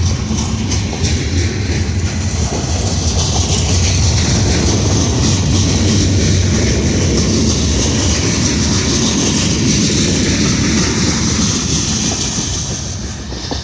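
Freight train rolling past, a steady loud rumble and rattle of wheels on rails that begins to die away near the end.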